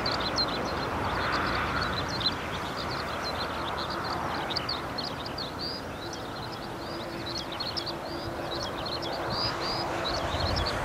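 Distant Airbus A320-214 on final approach, its CFM56 engines giving a steady rumble, with a low hum setting in a few seconds in. Small birds chirp continuously over it.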